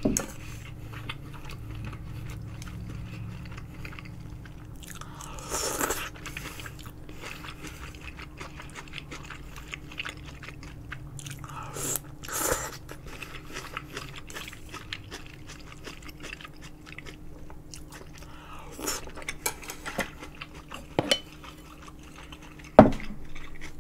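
Close-miked eating of kimchi udon: two noisy slurps of noodles, about five seconds in and again near the middle, with quiet chewing between. Near the end come a couple of sharp clicks, the loudest a short knock of a utensil against the bowl.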